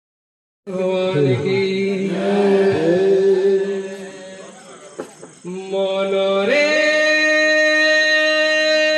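Devotional kirtan chanting: male voices sing a sliding, chant-like line over a steady held tone, starting suddenly under a second in. About six and a half seconds in it settles into long held reedy notes.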